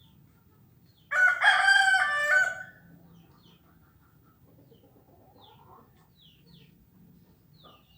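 A rooster crowing once, loud and stepped in pitch, for about a second and a half. It is followed by faint, short, high chirps from small birds.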